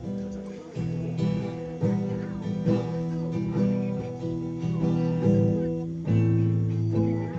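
Acoustic guitar strummed in chords, a fresh strum every half second to a second and the chords ringing on between strums. The guitar's tone is being tried out, and the player calls it light and dry.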